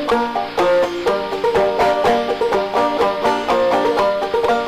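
Background music with fast plucked-string picking.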